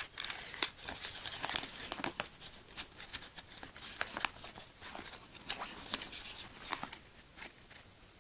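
Packaging of a small firework fountain being opened by hand: crinkling and tearing, with a busy run of short rustles and small clicks.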